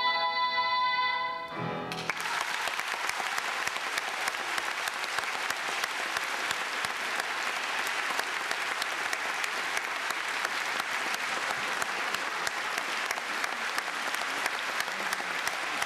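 A boy's sung final note, held over the piano, ends about a second and a half in. An audience then applauds steadily for the rest of the time.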